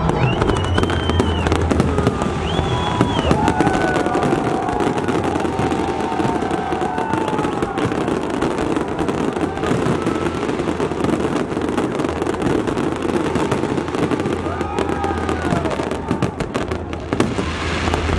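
Fireworks display: a dense, continuous crackling of bursting aerial shells, with a low rumble underneath.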